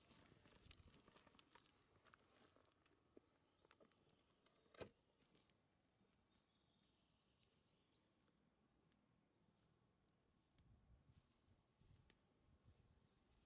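Faint songbird song: a short phrase of four or five quick, high, descending notes, heard twice, over quiet forest ambience. Handling rustle and clicks come first, with one sharp knock about five seconds in.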